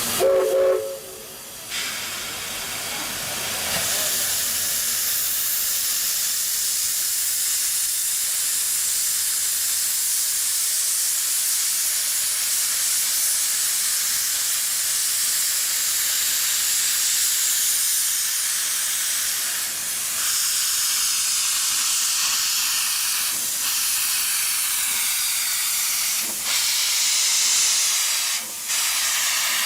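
Steam locomotive's replica Baldwin three-chime whistle sounding a chord that cuts off about a second and a half in, followed by a long, steady hiss of escaping steam from the locomotive.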